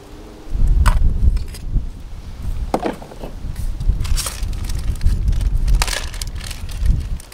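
Gusty wind buffeting the microphone with a heavy low rumble. Four sharp crunching snaps, a second or two apart, cut through it.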